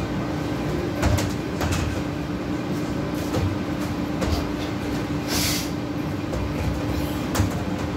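Steady drone of fast-food back-kitchen equipment and ventilation, with a constant hum, a few clicks and knocks, and a short hiss about five and a half seconds in.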